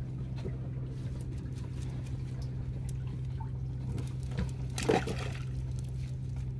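A boat's engine idling with a steady low hum, under water trickling and dripping from a wet fishing net as it is shaken out on deck. There is a brief louder noise about five seconds in.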